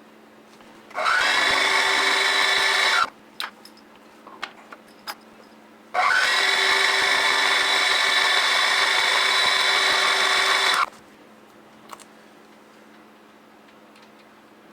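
Small benchtop milling machine spindle running in two bursts, about two and five seconds long, each starting with a brief rising whine and cutting off abruptly, while flats are milled on the end of a small rod. A few light clicks between the runs.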